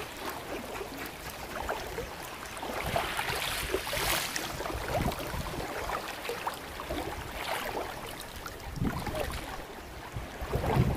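Shallow sea water sloshing and lapping, an uneven splashy wash of water sound.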